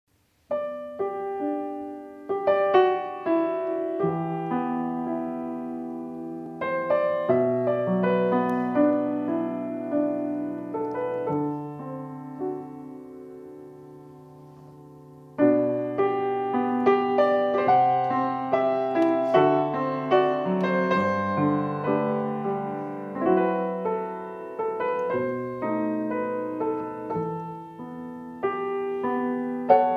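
Petrof grand piano played solo: chords and a melody that start about half a second in. Near the middle a chord is left to ring and fade for a few seconds before the playing comes back in louder.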